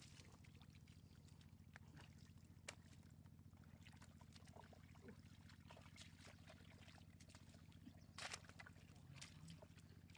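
Faint water sounds: small splashes and trickles, with a brief louder splash about eight seconds in, over a steady low hum.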